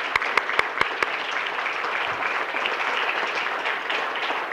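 Audience applauding steadily, with a few sharp individual claps standing out in the first second.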